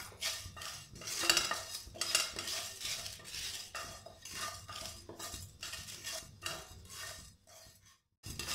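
Wooden spatula scraping and stirring whole spices (fenugreek, coriander, cumin, fennel seeds and dried red chillies) as they dry-roast in a non-stick frying pan, in quick repeated strokes, about three a second. The stirring breaks off briefly near the end.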